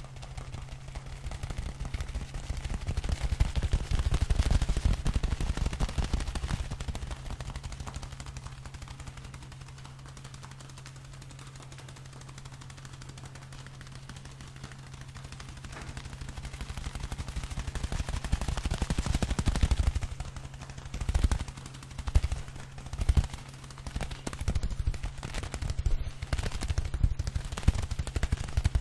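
Hand sounds close to the microphone: fingers moving and rubbing right at the mic, a dense fast crackle that swells twice, dies down in between, and breaks into short separate bursts near the end.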